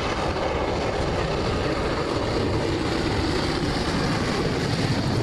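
A JNR Class D51 steam locomotive hauling passenger coaches past, with the steady running rumble of the train.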